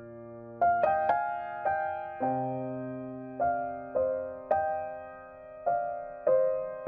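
Background piano music: a slow, gentle melody of single notes, each struck and left to fade, over held low notes.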